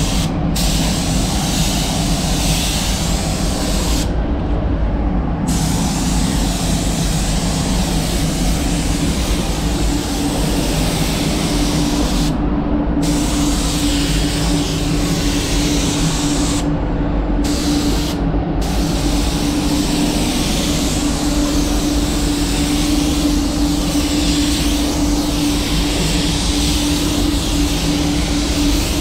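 Iwata WS400 spray gun hissing as it sprays clear coat at about two bar, the hiss breaking off briefly four times when the trigger is let go between passes. Under it, a spray booth's ventilation fan drones steadily with a low hum.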